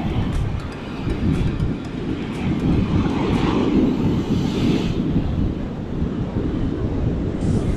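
Strong wind buffeting the microphone with a low, choppy rumble, over surf breaking on the beach, the wash swelling about halfway through.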